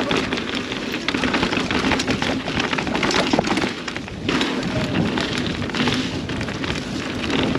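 Mountain bike rolling fast down a rough dirt trail: tyres crunching over dirt and rocks, the bike clattering and rattling over the bumps, with wind on the helmet-camera microphone. The noise briefly eases about four seconds in.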